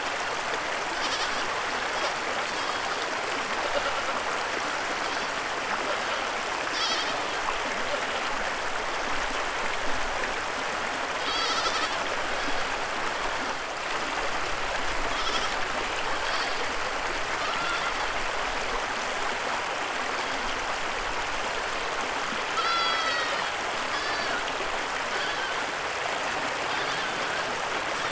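Spanish goats bleating: several short, wavering calls spread through, with two longer ones midway and later, over the steady rushing of a shallow creek.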